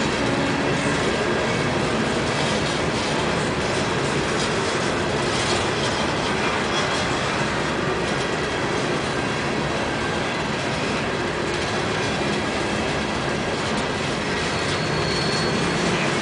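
Open-top coal cars of a freight train rolling past close by: a steady rumble and clatter of steel wheels on the rails, with a brief thin squeal near the end.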